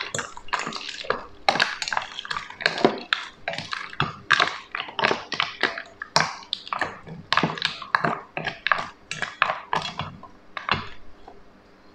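Wooden spoon stirring ice cubes in a stainless steel mixing bowl: ice clinking and knocking against the metal in a steady run of clicks, about two to three a second, that stops shortly before the end.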